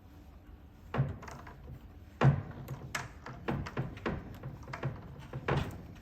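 Knocks and clicks of a cot's wheels being handled and screwed into their threaded sockets by hand, with a loud knock about a second in and another just after two seconds, then a run of smaller taps.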